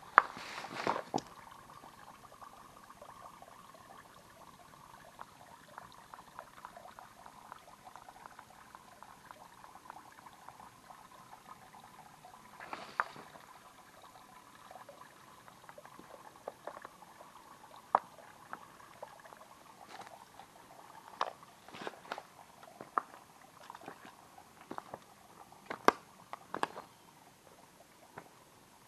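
Small mountain stream trickling and splashing steadily, with scattered sharp clicks and taps over it.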